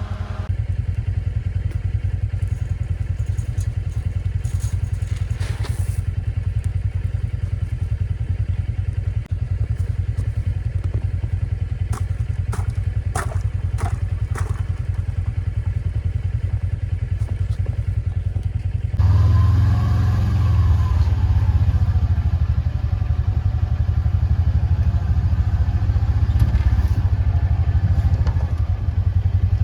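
A vehicle engine idling steadily, with a few sharp knocks and thumps in two short clusters. About two-thirds of the way in the engine becomes louder.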